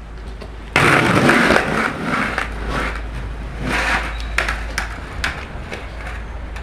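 Skateboard on concrete close to a ground-level microphone: a sudden burst of rolling and scraping about a second in, then scattered clacks and knocks of the board.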